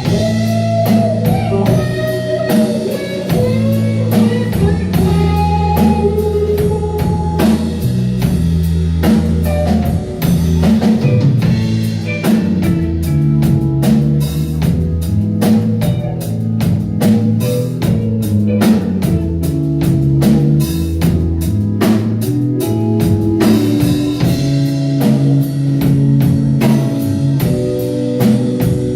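Rock band music with guitar, bass and drum kit, the drums hitting more densely in the middle of the passage.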